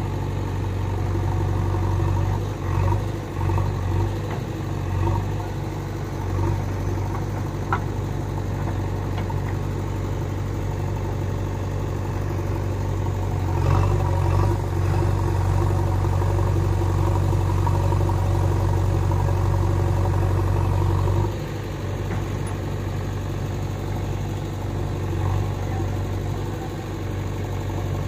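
Diesel engine running steadily at low speed. It grows louder about halfway in, holds for several seconds, then drops back.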